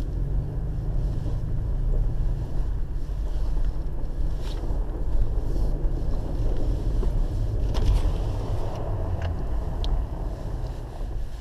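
Steady low rumble of a car's engine and tyres on an ice track, heard from inside the cabin, with a few short sharp knocks.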